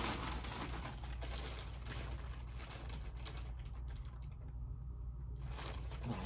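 Plastic shipping packaging rustling and crinkling as it is handled and rummaged through, easing off for about two seconds before picking up again near the end. A steady low hum runs underneath.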